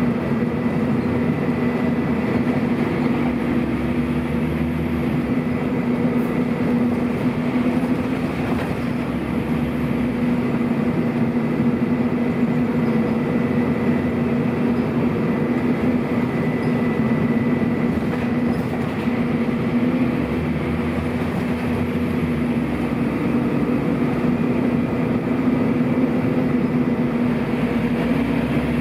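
Scania N230UB bus under way, its Scania DC09 9-litre diesel engine running steadily with the radiator cooling fans on, a constant hum with a thin high whine over it. The deepest part of the engine note shifts a few times, about every five to eight seconds.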